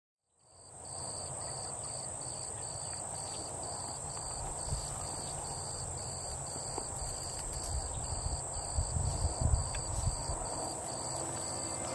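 Insect chorus in brushland: a steady high-pitched drone with a cricket chirping in an even pulse about twice a second. Beneath it is a low rumble that grows louder near the end.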